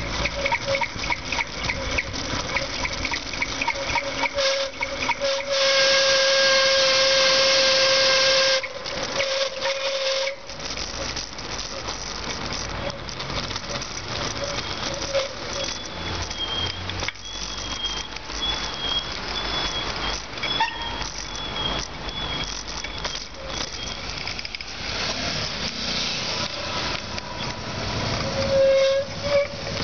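Bicycle brakes squealing with a steady whistle-like tone during a downhill ride. About six seconds in, a loud, harsh hiss of hard braking lasts about three seconds. Wind and traffic noise run underneath.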